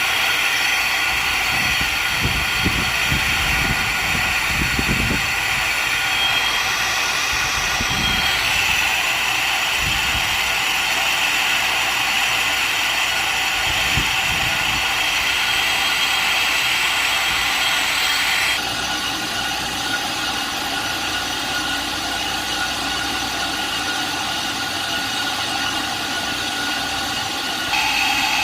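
Metal lathe running while turning a car brake disc, a steady mechanical noise with several low knocks in the first fourteen seconds. The noise drops in level suddenly about 18 seconds in and comes back up near the end.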